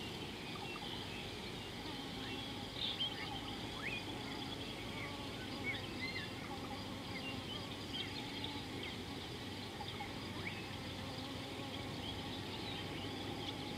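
Outdoor bush ambience: many small birds chirping and calling in short, scattered high chirps over a steady low background noise.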